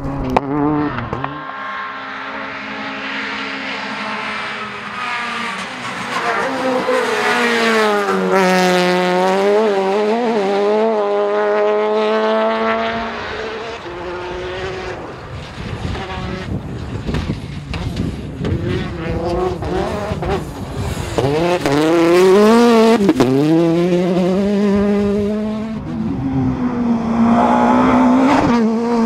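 Rally car engines revving hard, the pitch climbing and dropping again and again as the cars accelerate, brake and change gear, with some tyre noise between.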